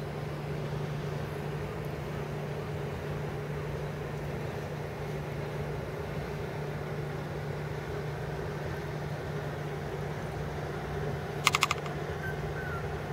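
Boat engine running steadily at idle, a constant low hum. About eleven and a half seconds in, a short quick run of sharp clicks.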